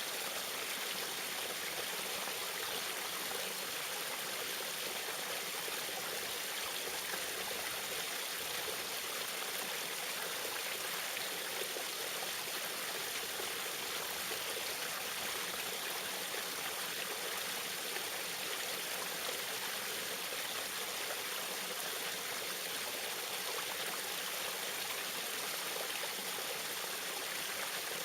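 Small waterfall splashing and trickling in a steady, even rush of water.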